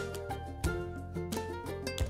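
Background music: a rhythmic tune of plucked-string notes over a steady bass beat.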